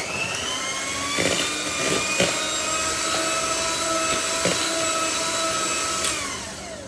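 Electric hand mixer beating cake batter: its motor whine climbs to speed at the start, then runs steadily with a few knocks. About six seconds in it winds down as it is switched off.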